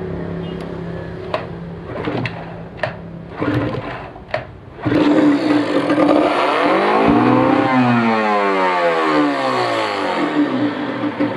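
Yamaha 15 hp outboard engine on test: a low steady running hum with a few sharp knocks, then about five seconds in it gets suddenly louder, revs up and comes back down in pitch, and runs on with a pulsing beat, as it is tuned after a carburettor change.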